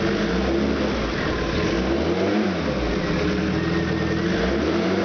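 Opel 2.4-litre four-cylinder engine with Motronic fuel injection being blipped above idle: the revs rise and fall about halfway through and start climbing again near the end. The transition off the idle circuit is a little rough.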